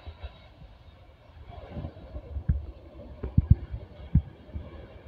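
Steady jet noise from a landing Boeing 737 rolling out on the runway, with wind buffeting the microphone in several sharp low thumps in the second half.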